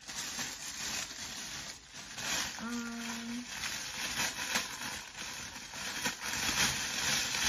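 Clear plastic poly bag crinkling and rustling as it is handled and pulled open around a puffer jacket.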